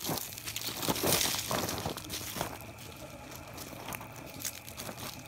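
Footsteps crunching on a dry dirt trail, a dense crackle of steps and scuffs that is loudest about a second in.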